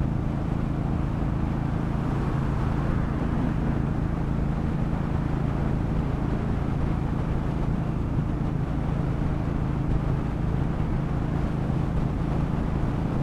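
Mercedes car driving at a steady pace, heard from inside the cabin: an even low engine and drivetrain hum under steady tyre and road noise.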